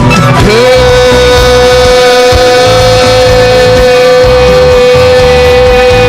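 Loud music: a single note slides up about half a second in and is then held at a steady pitch, over a low backing.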